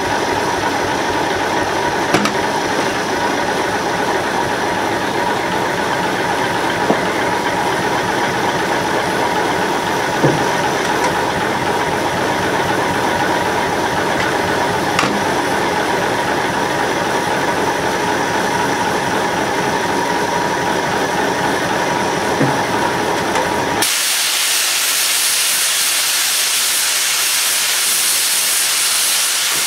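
Steam engine machinery running steadily with a held whine and a few sharp knocks. About 24 seconds in, the sound switches abruptly to a loud, even hiss of escaping steam.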